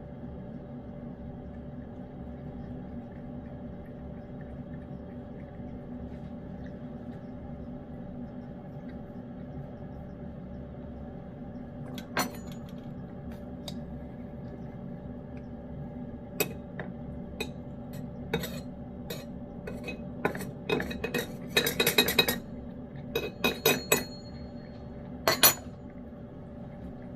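A cat eating wet food from a dish: light clinks and taps against the dish, scattered at first, then more frequent in the second half with one dense run, over a steady background hum.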